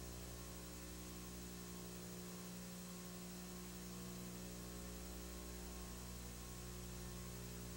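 Faint steady electrical mains hum with a light hiss. There are no other sounds.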